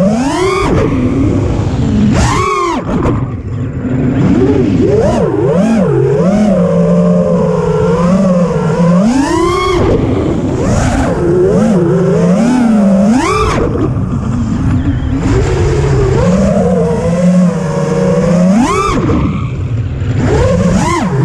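FPV racing drone's brushless motors and propellers whining, heard from its onboard camera. The pitch swoops up and down with the throttle, with several sharp rising punches.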